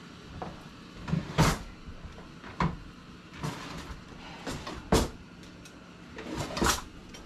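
Kitchen drawer with a utensil tray being opened and rummaged through: a string of separate knocks, clunks and clinks of wood and metal utensils, about half a dozen over a few seconds.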